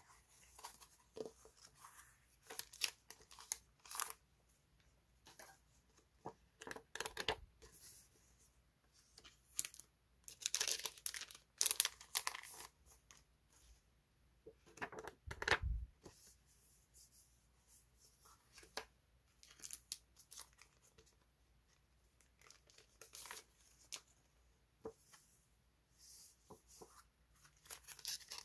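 Paper sticker sheets handled up close: irregular crisp rustles and crinkles as the sheets are fanned, flipped and laid down, with one louder soft thump about halfway through.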